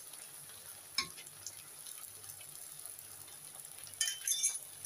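Boiled spaghetti lifted dripping from its pot of cooking water and dropped into a wok: one sharp clink about a second in, then a short run of wet splashes and clinks about four seconds in.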